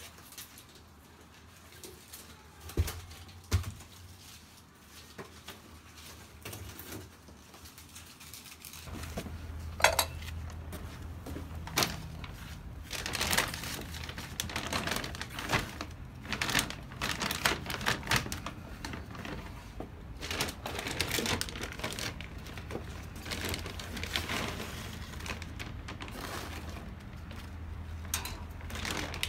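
Plastic bags of potting soil crinkling and rustling as they are handled and shifted, with many small clicks and knocks. The first part is quieter, with only a few isolated knocks; from about nine seconds in the handling is busier and a steady low hum sits underneath.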